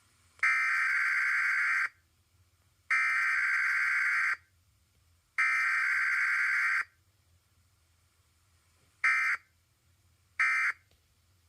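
Emergency Alert System SAME data bursts from a Required Weekly Test: three buzzy header bursts of about a second and a half each, a second apart, then two short end-of-message bursts.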